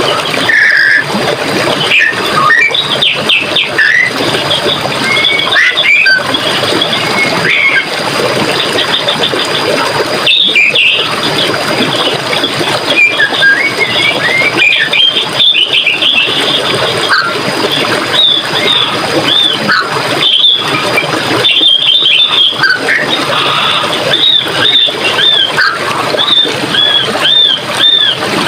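Running water in a forest stream, a steady rush, with birds chirping and singing over it; near the end one bird repeats a short rising-and-falling note several times in quick succession.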